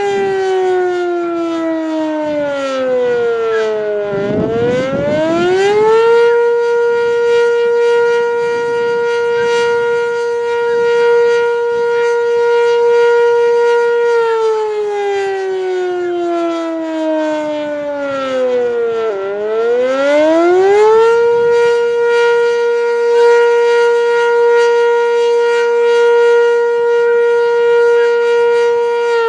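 Sentry 10V outdoor warning siren sounding its attack signal during a test. Its tone slides down for about four seconds, climbs back in about two and holds steady for about eight, then falls and climbs again to a second long hold, starting to drop once more near the end.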